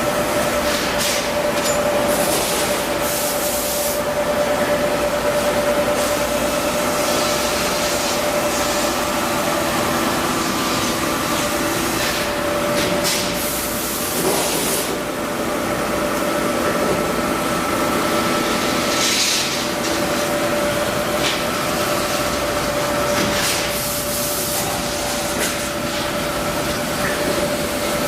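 Trumpf L-3030 CNC laser cutter running: a steady machine hum with two held tones under a constant hiss. Short bursts of sharper, higher hiss break in every few seconds.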